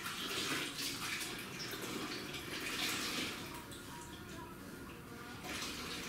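Water sloshing and splashing in a plastic mop bucket as a string mop is dunked and wrung out in its wringer basket, with water running off the mop head back into the bucket. The splashing is heaviest in the first few seconds, eases off, and picks up again near the end.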